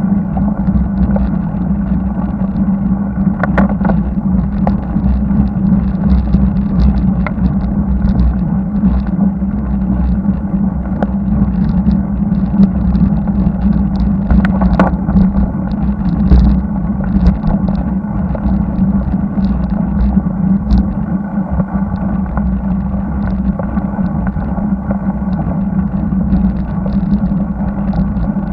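Muffled, steady road noise from a bicycle-mounted camera climbing a highway: riding noise on the microphone with a constant low drone, and motor traffic passing on the road.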